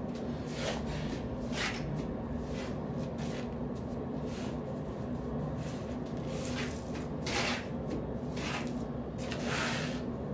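Steel trowel scraping and spreading mortar across the tops of a course of glass blocks, in short strokes about every second, over a steady low hum.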